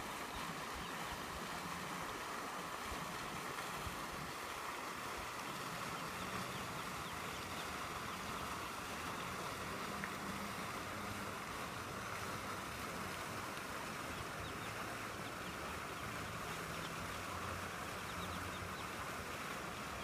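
Steady outdoor background noise with a low hum that comes and goes, like a distant motor.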